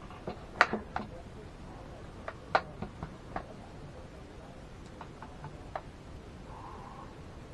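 Sharp clicks and taps from hands working on computer hardware, in an irregular series. The loudest come shortly after the start and again about two and a half seconds in, with lighter ticks later on.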